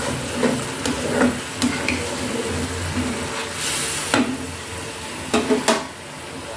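A silicone spatula stirring a thick, simmering mustard curry in a nonstick pan, with a string of light scrapes and taps against the pan over the cooking noise.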